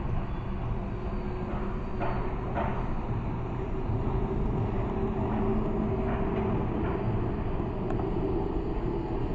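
Melbourne tram running past on its tracks amid street traffic: a steady low rumble and hum, with a couple of brief knocks about two seconds in.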